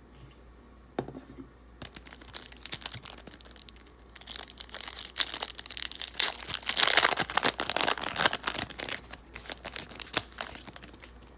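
A 2020 Leaf Draft football card pack's wrapper being torn open and crinkled by hand. It starts with scattered light handling clicks, and the crinkling is loudest a little past the middle before it dies down.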